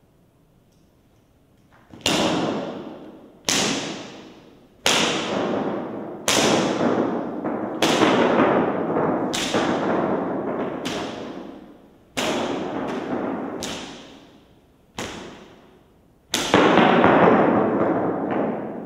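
A strap lashed hard against the floor over and over: about a dozen sharp strikes roughly every one and a half seconds, starting about two seconds in, each trailing off over a second or so in the room.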